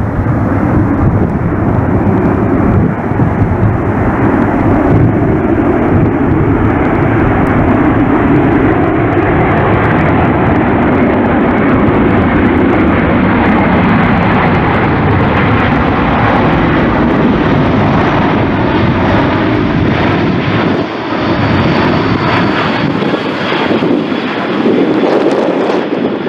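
Boeing C-17A Globemaster III's four Pratt & Whitney F117 turbofan engines at approach power during landing, a loud, steady jet rush. A faint whine climbs slowly in pitch as the aircraft draws nearer.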